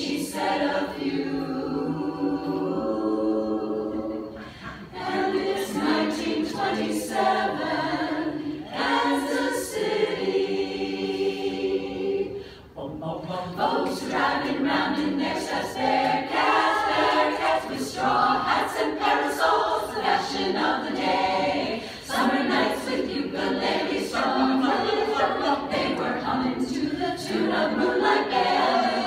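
Women's chorus singing a cappella in several voice parts, with short breaks between phrases.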